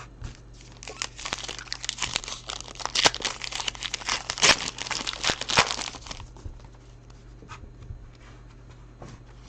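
Foil trading-card pack wrapper crinkling and tearing open: a dense run of sharp crackles for about five seconds that dies down to a few faint rustles near the end.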